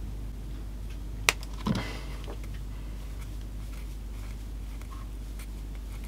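Small clicks and faint ticks of fingers working the freshly cut ends of a power-pack lead, with one sharp click about a second in and a short scuffing sound just after.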